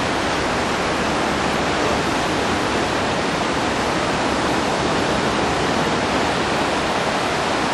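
Steady, even rush of ocean surf breaking on a beach.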